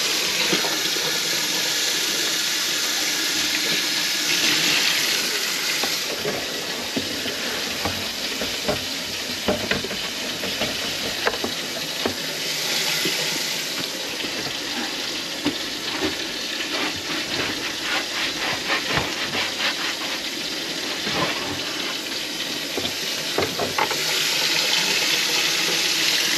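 Kitchen faucet running into a stainless steel sink and down the drain, a steady rush of water, with scattered small knocks and clatters through the middle stretch. The water drains freely, a test of the drain line just cleared of grease.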